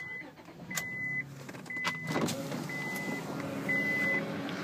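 A 2003 Honda Odyssey's dashboard warning chime beeping steadily, one short high beep about every second.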